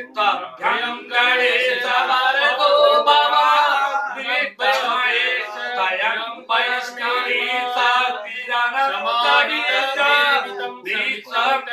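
A man chanting Hindu puja mantras in a sing-song, unaccompanied voice, pausing briefly between phrases.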